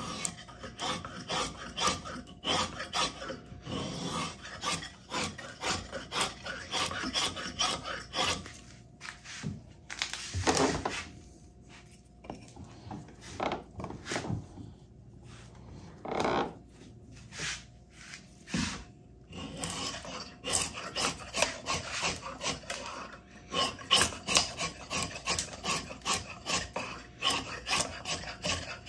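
Freshly sharpened drawknife taking shavings off eastern red cedar: a quick run of short scraping strokes. In the middle the strokes thin out to a few longer, slower pulls, then quicken again.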